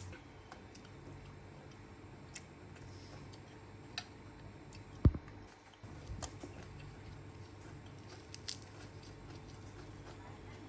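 Scattered light clicks and taps of cooking utensils, with one much louder knock about five seconds in, over a steady low background hum.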